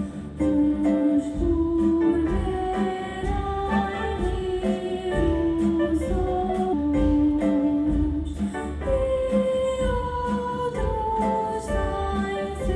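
A children's choir singing with a mixed instrumental ensemble of strings, double bass and percussion, over a steady beat of drum strikes about twice a second.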